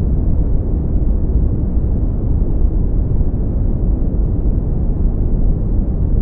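Deep, bass-heavy brown noise: a steady, even rumbling hiss with most of its weight in the low end and almost nothing in the treble.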